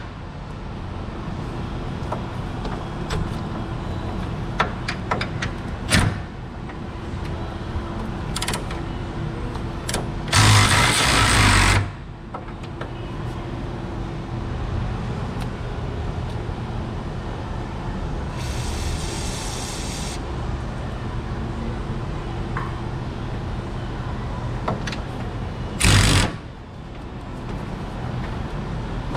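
Work on a Jeep's suspension: scattered metal clicks and clinks over a steady low hum, broken by two loud bursts of about a second each from a power tool, about ten seconds in and again near the end.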